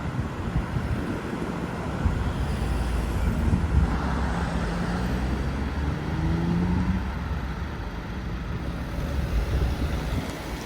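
Road traffic: a vehicle engine runs close by, its note rising for a few seconds in the middle, over steady road noise.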